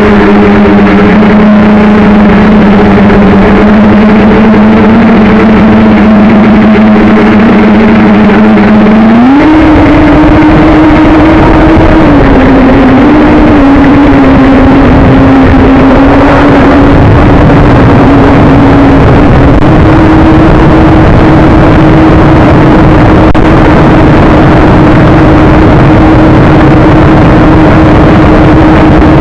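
JJRC X1 quadcopter's brushless motors and propellers humming steadily, heard through the camera mounted on the drone. The pitch steps up about nine seconds in, wavers briefly, and then holds higher, with wind buffeting the microphone.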